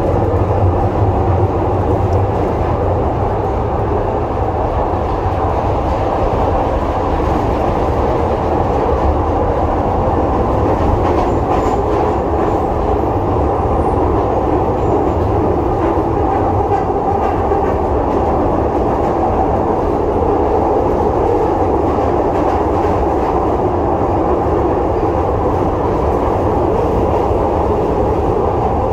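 Glasgow Subway train heard from inside the carriage as it runs through the tunnel: a loud, steady rumble of wheels on rails.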